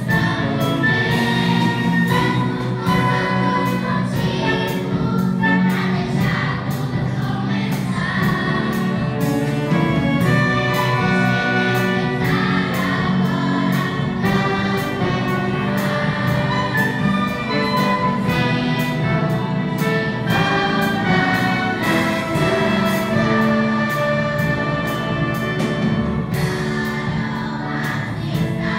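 Youth orchestra of strings and brass with a large choir singing along, playing a Brazilian popular-song arrangement, with a drum kit keeping a steady beat.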